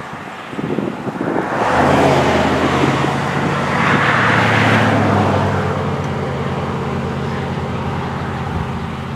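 Wind buffeting the microphone. From about two seconds in, a vehicle engine idles steadily underneath it, with the wind gusting strongest about two and four seconds in.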